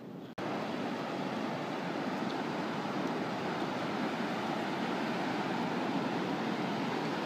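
Steady rush of breaking ocean surf, starting abruptly after a momentary dropout near the start.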